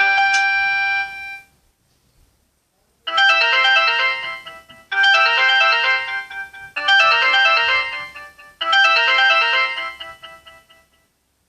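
Samsung GT-E1272 ringtones played on a Samsung Gusto 3 phone. One melody ends in the first second and a half. About three seconds in, a new bell-like melodic phrase starts and repeats four times, each about two seconds long.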